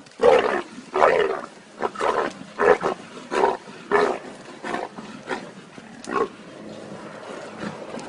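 A wild animal calling loudly over and over, roughly a call every half second to second, the calls fading out a little after six seconds in.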